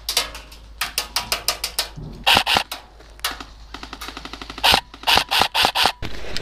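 Airsoft guns firing bursts of rapid snapping shots, about nine a second, with louder clusters about two seconds in and near the end.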